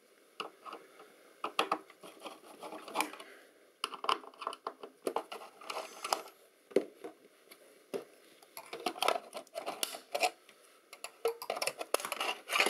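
Screwdriver undoing small screws in the folded-aluminium side cover of a Collins VIR-351 navigation receiver: irregular metallic clicks, scrapes and light knocks, busier near the end as the cover is handled.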